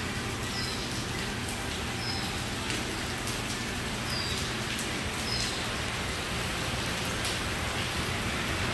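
Steady rain falling on the pool and patio, a constant even hiss. A short, high two-note chirp repeats four times in the first six seconds over the rain.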